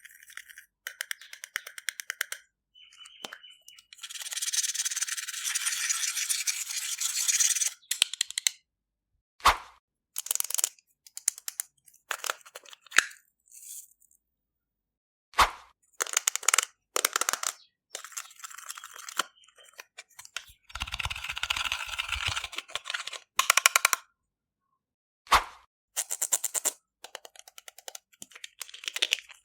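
Close-miked ASMR sounds of slime and cosmetics being handled and mixed: a run of short cut-together snippets of crackling, crunching and sharp clicks, separated by silent gaps. Two longer stretches of dense crackling come about four seconds in and again about twenty-one seconds in.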